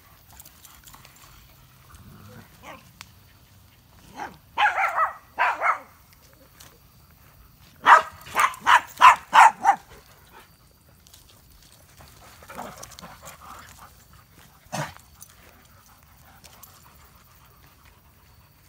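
Dog barking in play: a few barks about four seconds in, a quicker run of about six barks around eight seconds in, and a single bark near fifteen seconds.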